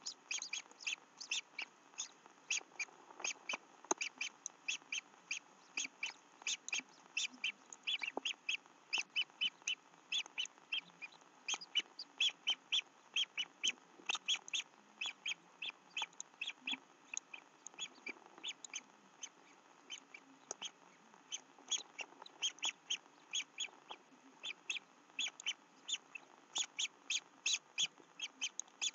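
Young white stork chicks calling from the nest: a long run of short, high calls, a few each second, with brief pauses here and there.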